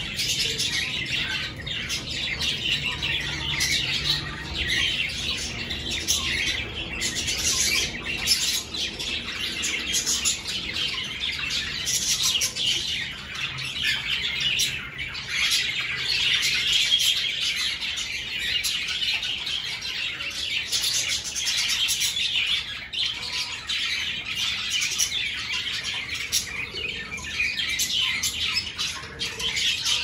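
A flock of budgerigars chattering and chirping, many birds at once in a dense, unbroken chorus.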